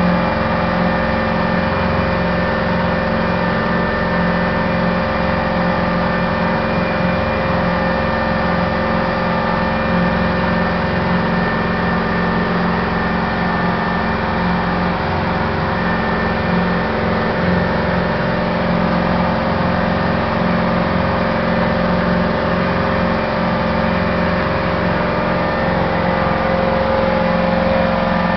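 A boat's engine running steadily while the boat is underway, a constant even drone with no change in speed.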